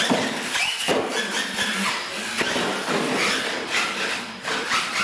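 Electric RC monster truck driving on a concrete floor: its motor whine rises and falls in pitch several times as it speeds up and slows, over a hiss of tyres and hall noise.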